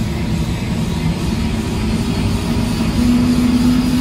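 Helicopter turbine engine and main rotor running, heard from inside the cabin: a loud, steady low rumble with a whine that rises slightly in pitch and grows louder about three seconds in.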